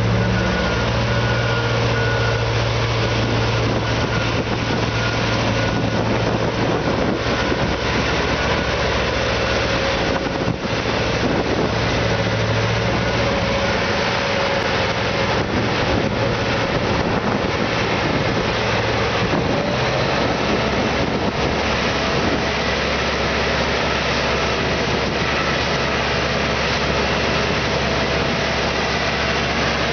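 A large mining haul truck's diesel engine running steadily as the truck drives along a gravel haul road. A constant low hum sits under a broad rumble of engine and tyre noise.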